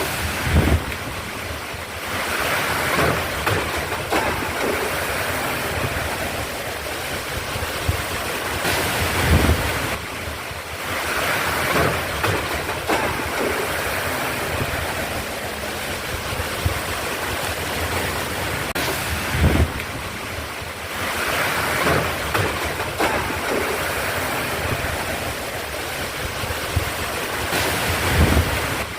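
Heavy rain pouring in gusty wind, the rush swelling and easing every several seconds, with wind buffeting the microphone in low thumps.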